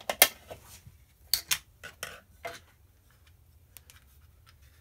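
Sharp plastic clicks and knocks from handling a quartz clock movement and a plastic wall-clock case: a cluster of clicks in the first two and a half seconds, then only a few faint ticks.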